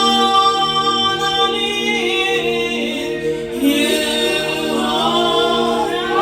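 Gospel worship singing: a voice holding and bending long sung notes over steady sustained chords.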